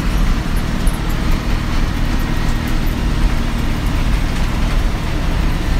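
Bus engine and road noise heard from inside the cabin while the bus drives a winding road: a steady low rumble.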